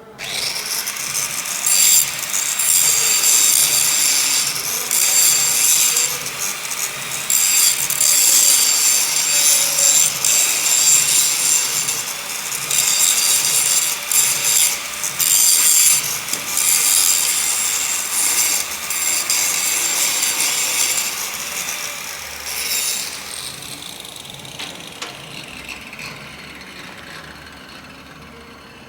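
Stick (arc) welding with a 3.2 mm cast-iron electrode at about 90 A: a loud, steady crackling hiss from the arc that starts suddenly, with brief irregular breaks. It dies away over the last few seconds.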